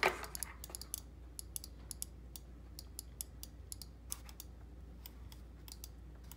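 Logitech G203 gaming mouse buttons being clicked by hand: an irregular run of short, sharp clicks, several a second, with brief pauses between bursts.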